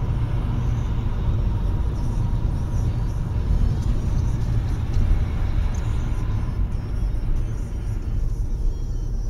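Steady low road rumble of tyres and engine, heard from inside a moving car on a snowy highway.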